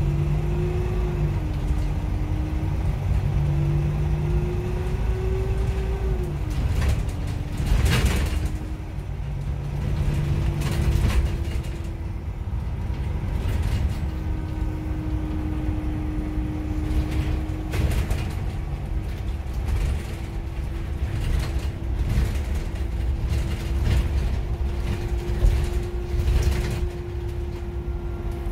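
Inside a VDL Citea XLE-145 city bus on the move, with its 8.7-litre Iveco Cursor 9 diesel engine and ZF Ecolife automatic gearbox: a low running rumble under a steady drivetrain whine that wavers and dips briefly, with a few knocks and rattles, the loudest about eight seconds in.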